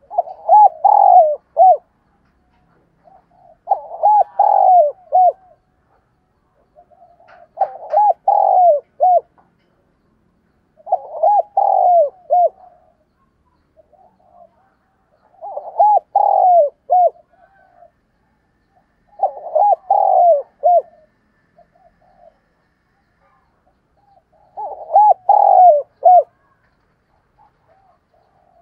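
Spotted dove singing its cooing song: seven short phrases, about one every four seconds, each a quick run of several coos.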